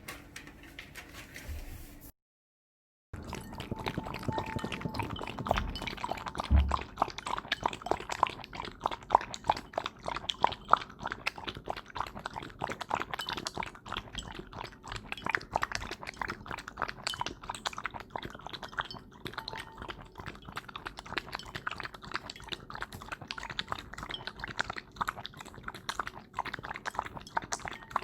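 Welsh Corgi lapping milk from a bowl with its tongue, a quick, steady run of wet lapping strokes, close up. The sound drops out briefly about two seconds in, then the lapping carries on without a break.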